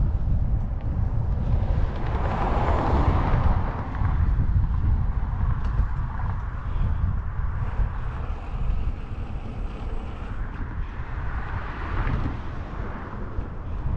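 Wind buffeting a cyclist's microphone on the move, with road traffic going by: two vehicles swell up and fade away, one about two seconds in and another near the end.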